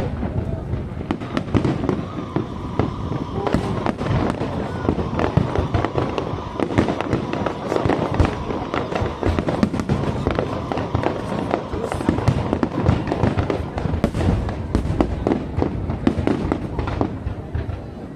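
Aerial fireworks display: a dense, continuous barrage of bursts and crackles with no break.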